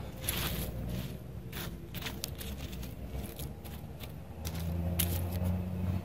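Fingers scraping and pushing dry, stony soil back around a seedling, giving short scratchy crackles of grit and pebbles. A low engine hum runs underneath and grows louder near the end.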